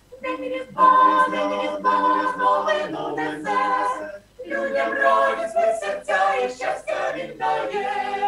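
A choir singing a Ukrainian Christmas carol a cappella, with no instruments. The voices sing in held phrases, with a short break for breath about four seconds in.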